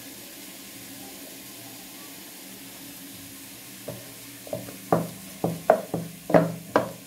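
Boiled potatoes being mashed in an aluminium pot, the utensil striking the pot about three times a second, starting about halfway through after a low steady hum.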